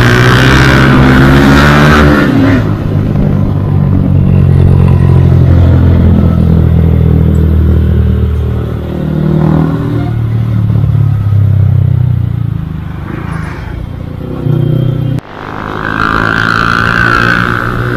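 Yamaha R15 V2's single-cylinder four-stroke engine pulling under way, its pitch rising and falling with the throttle and gear changes. Wind rushes over the microphone for the first couple of seconds and again near the end, and the sound breaks off abruptly about fifteen seconds in.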